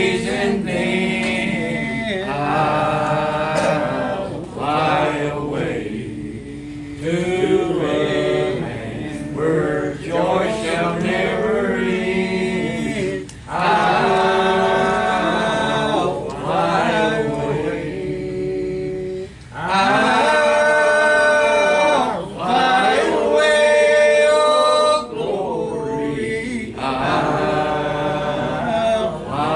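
A group of voices singing a gospel hymn in held, sustained phrases with short breaks between lines.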